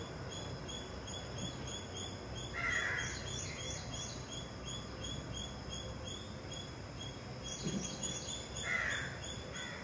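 A crow cawing twice, short harsh calls about three seconds in and again near the end, over a faint high ticking about four times a second.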